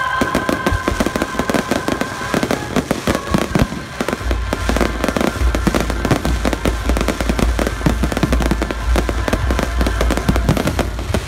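Fireworks display: a rapid, unbroken barrage of bangs and crackling from many shells bursting at once. A deep rumble joins in about four seconds in, and faint music fades under it early on.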